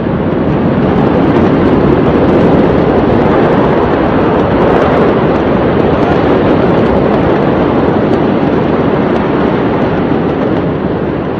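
Steady, loud rumbling roar with faint scattered crackles, heard while the large fire at the port burns, before the ammonium nitrate explosion.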